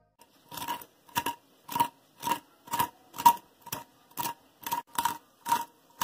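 Metal fork tapping and pressing crisp deep-fried cauliflower florets: about a dozen short crunchy taps, roughly two a second, each with a faint metallic ring.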